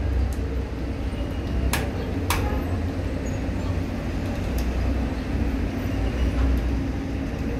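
Steady low rumble of room noise, broken by two sharp clicks about half a second apart some two seconds in, from screwdrivers and screws working on the opened metal chassis of an all-in-one computer.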